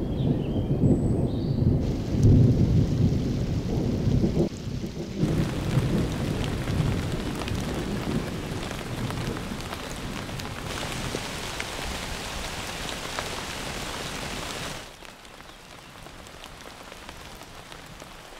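Thunder rumbling over rain, then steady rain that turns quieter near the end.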